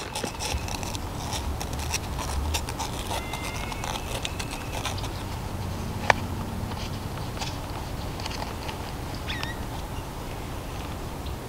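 Light scratching and clicking from a turkey hunter handling a friction pot call and striker, dense at first, with one sharp click about six seconds in. A faint short bird chirp comes near the end, over a low steady rumble of wind.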